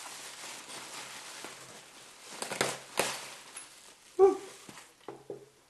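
Packing paper and bubble wrap rustling and crinkling as a wrapped gift is handled and unwrapped, with a burst of sharp crackles about two and a half seconds in. A short loud voiced sound from the man about four seconds in, and a smaller one near the end.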